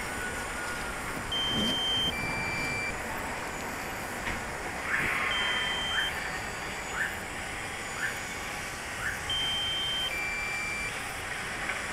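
Short electronic beeps at two pitches, a higher one followed by a lower one, sounding in pairs a few seconds apart over a steady hiss. In the middle a run of five short rising chirps comes about once a second.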